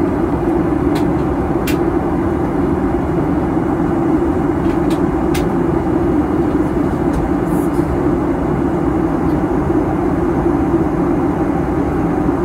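Steady cabin noise inside a Boeing 737-900 during descent: the even rush of its CFM56-7B turbofan engines and the airflow over the fuselage, heard through the cabin, with a few faint clicks.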